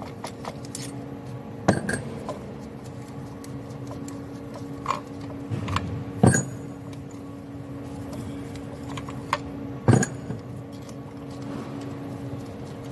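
Metal clinks and knocks of steel injector puller tools being handled on a puller plate, with three sharper knocks about two, six and ten seconds in and lighter ticks between, over a steady hum.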